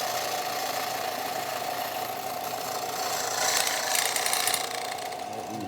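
Electric grinding tool running with a steady motor whine as the cut end of a steel bolt is ground smooth, the grinding noise growing louder and rougher for about a second, three and a half seconds in.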